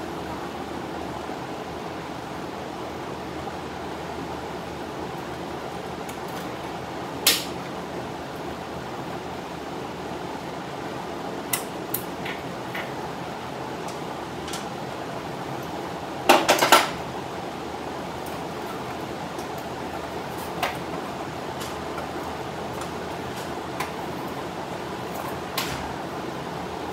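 Large drum fan running steadily, with scattered sharp metal clinks of hand tools and bolts on the Camaro's V8 as the valve covers are taken off. The loudest is a quick cluster of clanks about two-thirds of the way through.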